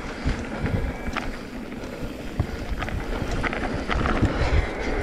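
Wind buffeting the microphone of a mountain bike riding fast down a dirt trail, with tyre rumble on the dirt. A few sharp knocks and rattles from the bike over bumps.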